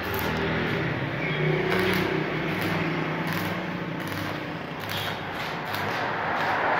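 Electric arc welding on a steel gate grill: the arc crackles and sizzles steadily, with a low hum underneath.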